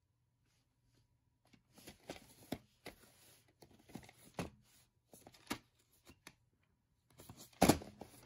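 A VHS tape in its cardboard sleeve handled and turned over by hand on carpet: a string of short scrapes, rustles and taps, with one louder knock near the end.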